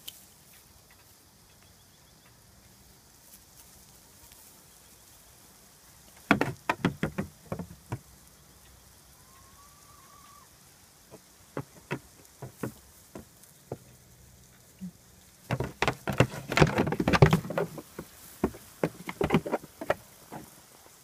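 Goats scuffling: quick clusters of hoof clatter and knocks, a short flurry about six seconds in and a longer, denser one from about fifteen seconds in.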